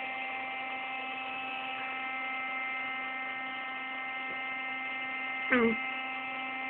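Electric air pump running steadily while it inflates an airbed, a constant even hum. A short voice sound comes in near the end.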